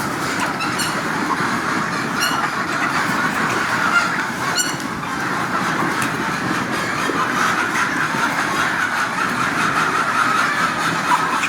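A large flock of chickens calling continuously in a dense, overlapping chatter. A few sharper calls stand out in the first five seconds.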